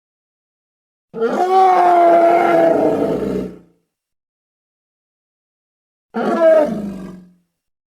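Giant gorilla roar sound effect, twice: a long pitched roar that holds steady and then fades, then a shorter roar that falls in pitch, with dead silence between.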